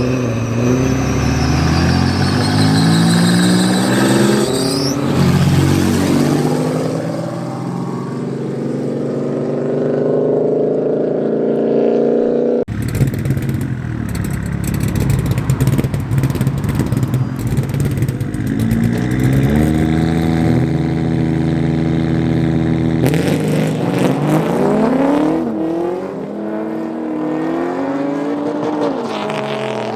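Race car engines at full throttle, pitch climbing as they accelerate hard. The sound cuts off abruptly about halfway through, followed by engines holding a steadier pitch and then revving up again near the end.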